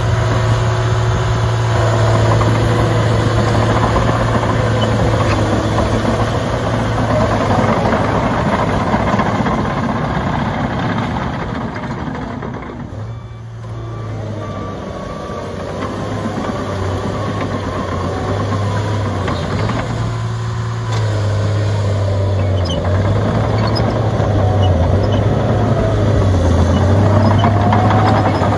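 A John Deere 750J crawler dozer's diesel engine running while the machine drives on its tracks. The low engine note shifts up and down in steps, drops in loudness about halfway through as the dozer moves away, and builds again as it comes back, with a rising and falling whine over it.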